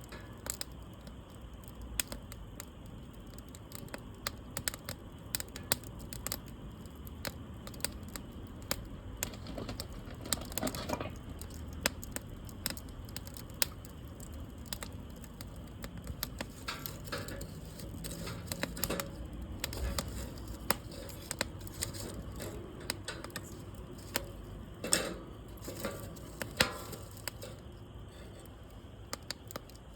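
Burning wood in a campfire crackling, with many irregular sharp pops and snaps.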